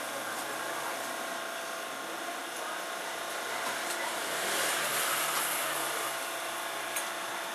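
Steady background hiss with faint steady hum tones, swelling briefly just past the middle, and a single short click near the end.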